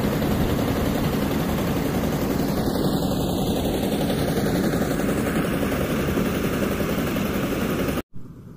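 An engine running steadily with a dense, noisy drone, which cuts off abruptly about eight seconds in.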